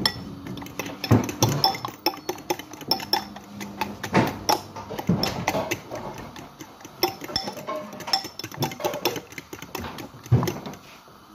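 Kitchen clatter: a metal spoon clinking and scraping in a bowl as food is stirred, with irregular knocks of dishes and pans.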